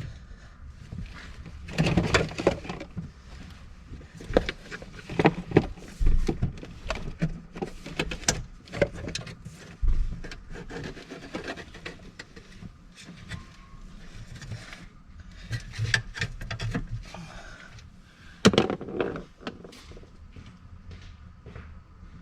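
Irregular knocks, clicks and scraping as the seat, brace and trim under a Ford Transit's tipped-up driver's seat are handled and pulled at, with several louder clunks and a longer scrape near the end.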